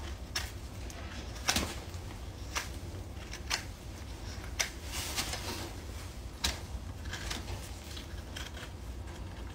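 Hoof knife paring the sole of an overgrown horse hoof: a series of sharp cutting and scraping strokes, roughly one a second, over a steady low hum.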